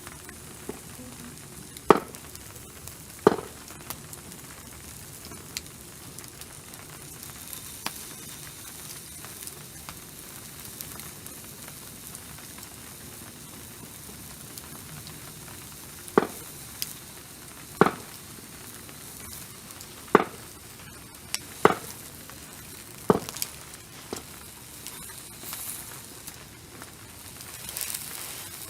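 Food sizzling as it fries, a steady hiss, with sharp clicks: two near the start and a cluster of five or so about two-thirds of the way through.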